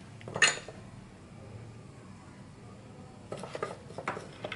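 Workbench handling clatter: a sharp knock about half a second in, then a quick run of light clicks and rattles near the end as the soldering iron is lifted out of its stand.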